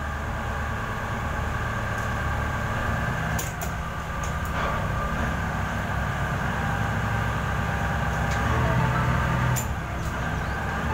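A mooring boat's engines running with a steady low drone, heard inside the wheelhouse, with a few light clicks.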